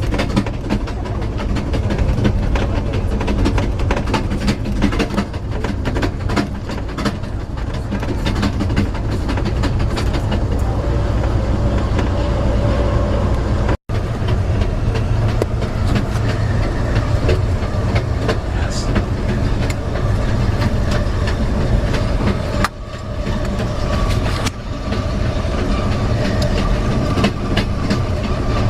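Passenger train wheels clicking over the joints of old jointed rail, a continual clickety-clack over a steady heavy rumble. The sound cuts out for an instant about halfway through.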